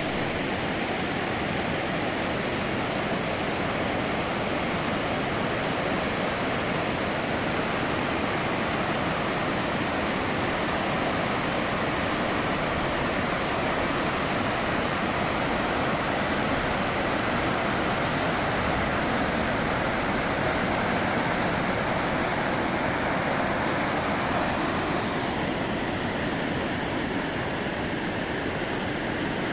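River water rushing steadily, a constant wash of noise that thins a little in its higher part about 25 seconds in.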